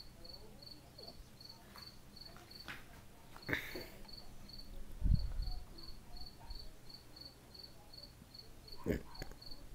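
A cricket chirping in a steady high pulse about three times a second, pausing for a moment in the middle. A few knocks and one louder low thump about five seconds in break in over it.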